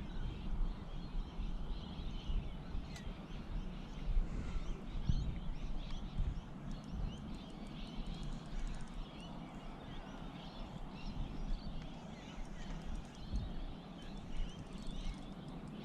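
Small waves lapping and knocking against a plastic kayak hull, with uneven low thuds, and faint high chirps in the background.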